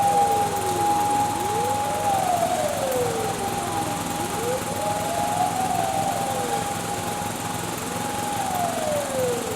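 Several fire engine sirens wailing at once, out of step with each other. One holds a high steady note while others glide slowly up to it and fall away again, every few seconds.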